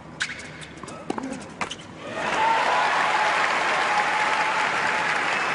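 Tennis ball struck back and forth with racquets, a few sharp hits in the first two seconds, then the arena crowd breaks into loud applause as the point is won, which cuts off suddenly at the end.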